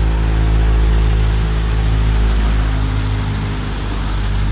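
Belarus 510 tractor engine running steadily while powering a wheat thresher, the engine and thresher together making a loud, constant drone with a deep hum underneath.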